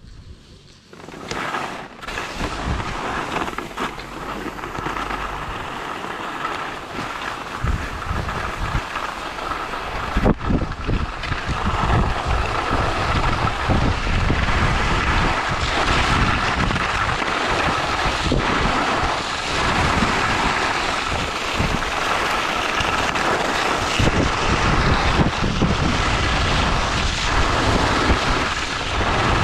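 Wind rumbling on a GoPro's microphone while skiing downhill, with the hiss of skis sliding over packed snow; both grow louder about ten seconds in as the skier gathers speed.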